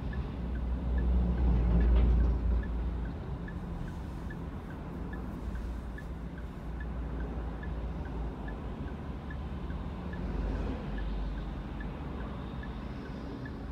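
City traffic heard from inside a stationary car: the low rumble of vehicles passing in front, loudest about one to two seconds in as a truck goes by. A light, regular ticking, about two to three a second, runs underneath.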